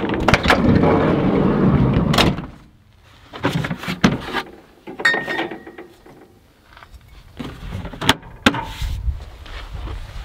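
Sliding door of a 1991 Volkswagen Westfalia van being opened: a latch click, about two seconds of rolling rumble, then a knock as it stops. Then lighter clicks and knocks as a portable fridge lid is opened and a bottle taken out, with a short high tone about five seconds in.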